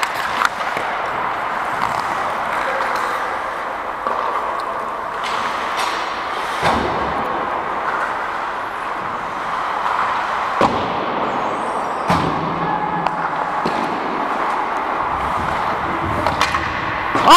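Ice hockey play heard from on the ice: a steady scraping hiss from skates on the ice, with a few sharp knocks of sticks, puck or boards. At the very end, a loud, shrill referee's whistle blast begins.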